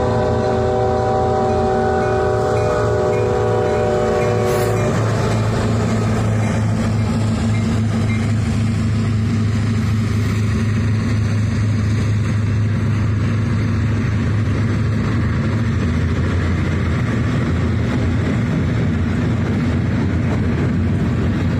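Locomotive air horn sounding one long chord of several notes, ending about five seconds in, over the steady low rumble of a freight train's cars rolling through a grade crossing.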